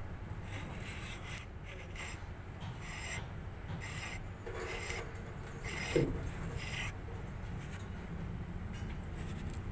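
Hand-tool work on a truck differential: short rasping, scraping strokes roughly once a second, over a steady low hum.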